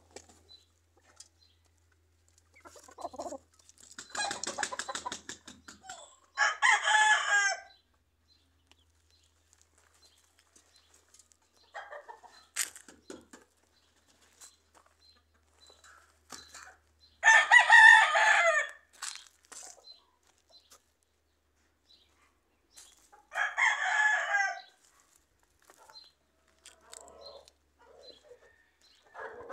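Gamecock roosters crowing: three crows of a second or two each, spaced several seconds apart, with a quick flurry of wing-flapping just before the first crow. Soft clucks and scratching fill the gaps.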